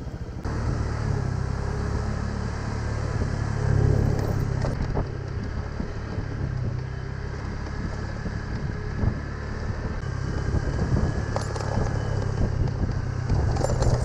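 Honda motor scooter's small engine running steadily at low speed on a rough dirt road, with a few light rattles near the end.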